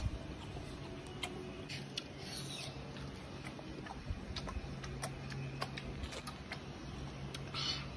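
Scattered light clicks and crackles of Manila tamarind (kodukapuli) pods being split and peeled by hand, over a low steady hum. Two brief rustles come about two and a half seconds in and again near the end.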